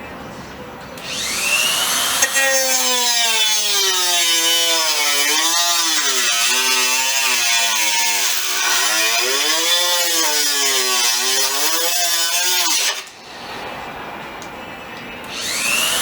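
Handheld power cutting tool spinning up and cutting the car's fender, its pitch dipping and recovering as it bites. It stops about 13 seconds in and spins up again near the end.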